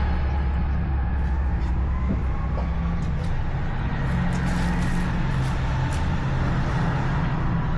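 A steady low mechanical rumble, like a running engine or motor, with a few faint soft clicks about halfway through.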